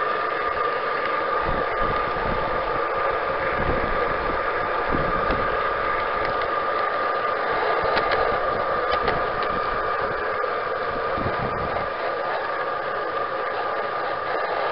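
G-scale garden railway train running along its track, heard from on board: a steady mechanical whine from the drive with wheel rattle, low rumbling and a few sharp clicks over the rails.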